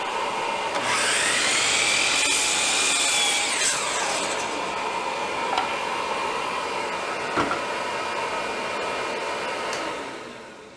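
Electric power saw running and cutting through wood, the pitch rising and then dropping during the cut in the first few seconds; the motor winds down near the end.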